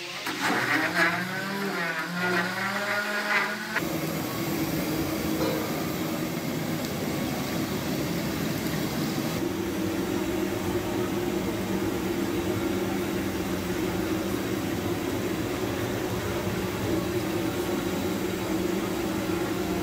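Electric blender-grinder motor running, grinding ginger and garlic into a paste. Its pitch wavers for the first few seconds, then settles into a steady whir.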